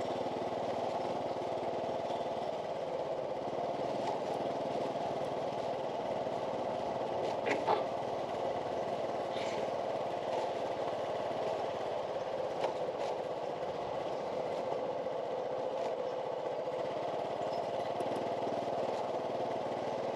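Steady city-street background hum of distant traffic, with a couple of brief clicks about seven and a half and twelve and a half seconds in.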